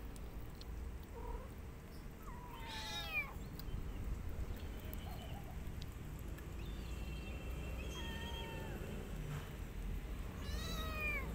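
A kitten meowing: three short, high, falling meows a few seconds apart.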